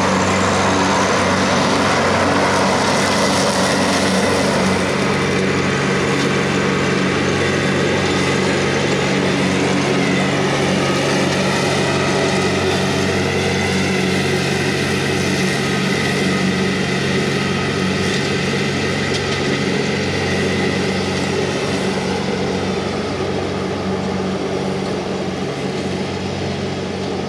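TYM T264 compact tractor's diesel engine running at about 2,800 RPM, driving a 5-foot Phoenix finish mower through the 540 PTO while it cuts grass. A steady drone that shifts slightly in pitch partway through.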